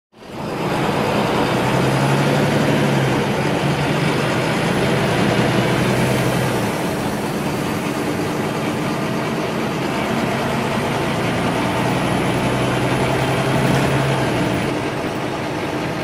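The inside of a city bus: its engine and running noise are a steady rumble and hiss through the cabin. A low hum swells up twice, and a faint high whine comes with it. The sound fades in at the start.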